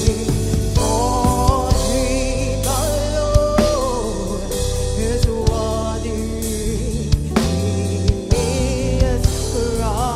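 Live gospel worship music: a voice sings and holds long notes with vocal runs over a band with a drum kit keeping a steady beat.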